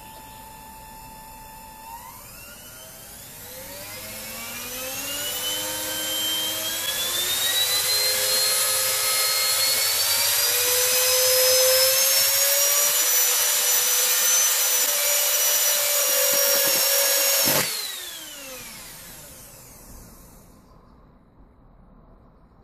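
Small brushed universal motor from a hand mixer, overvolted from a step-up transformer, speeding up with a whine that climbs steeply in pitch for about ten seconds, then holding a loud, high whine. About seventeen seconds in there is a sharp crack as part of its field winding fails open-circuit. The current drops to zero and the motor spins down with a falling whine.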